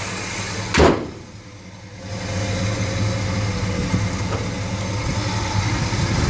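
Hood of a 1971 Chevelle SS slammed shut about a second in, a single loud bang, over the steady idle of its 454 LS5 big-block V8.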